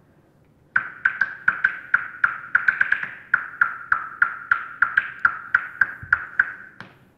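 Recorded bat echolocation calls, made audible by a bat detector and played over loudspeakers: a fast train of sharp, loud clicks, about three or four a second, bunching closer together around two to three seconds in. The presenter takes the louder clicking as the bat closing in on its insect prey.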